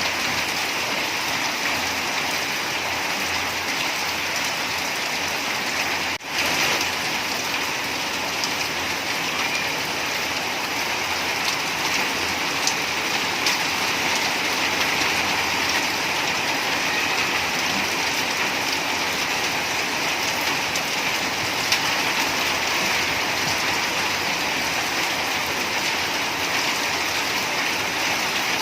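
Steady rain falling, an even hiss with scattered drop patter, briefly cut out about six seconds in.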